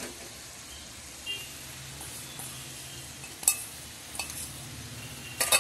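Faint sizzling from the onion-tomato masala in a metal kadai as soaked puffed rice goes in, with a few metal clinks of a steel utensil against the pan, the sharpest about three and a half seconds in and two close together near the end.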